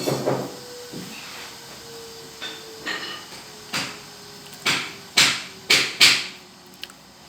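Angle grinder during renovation work: a faint steady whine slowly dropping in pitch, then, from about halfway through, five short harsh bursts of grinding in quick succession, each dying away fast, the loudest near the end.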